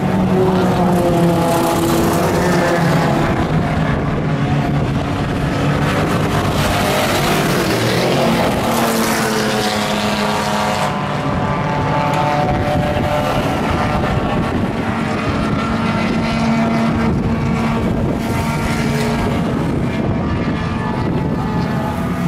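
Race car engines running at speed on a road course, their pitch rising and falling as they accelerate, shift and slow for corners.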